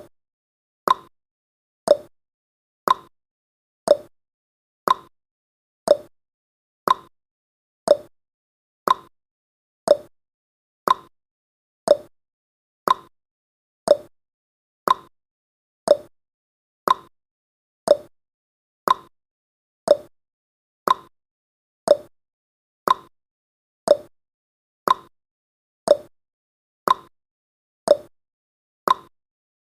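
Clock-tick sound effect of a countdown timer: one short, sharp tick every second, evenly spaced, with silence between the ticks.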